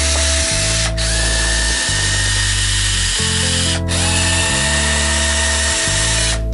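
Cordless drill-driver running, backing bolts out of a wooden table frame; it stops briefly about a second in and again near four seconds, then runs on. Background music plays underneath.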